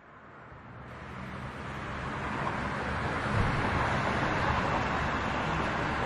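Steady rushing white noise of a waterfall. It fades in over the first two or three seconds, then holds even.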